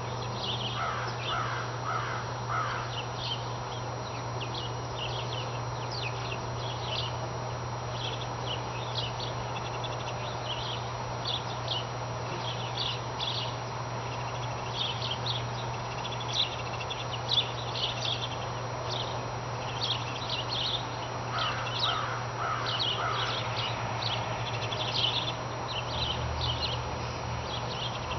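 Birds calling outdoors: a group of about four harsher calls near the start and again about two-thirds of the way through, over frequent short high chirps, with a steady low hum underneath.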